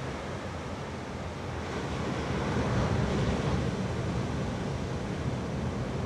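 Ocean surf: steady wash of waves, swelling about two seconds in and easing off again after about four seconds.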